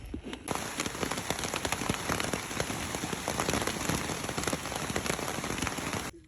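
Heavy rain falling, a dense hiss of countless drop impacts; it starts abruptly about half a second in and cuts off suddenly near the end.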